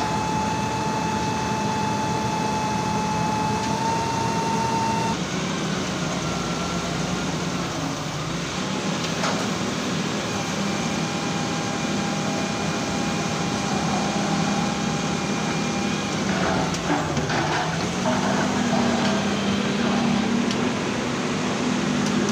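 Auger piling rig drilling: its engine and hydraulic rotary drive run with a steady hum and a higher whine that shifts pitch a few times. There are a few light knocks about two-thirds of the way through.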